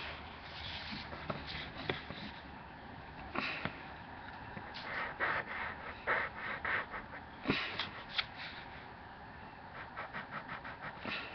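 Drawing strokes on sketch paper while lettering words: short, scratchy strokes in uneven runs, with a quick run of them near the end.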